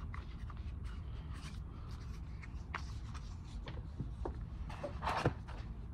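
Faint handling noise of the plastic gimbal and tripod parts: scattered light clicks and rubbing, with a short rustle about five seconds in, over a steady low room hum.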